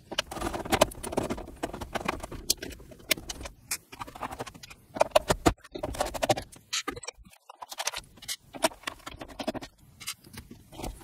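Screws being undone with a hand screwdriver from the underside of an Atari 800's plastic case: a run of irregular clicks, scrapes and small rattles as the screws turn and the case is handled on the desk.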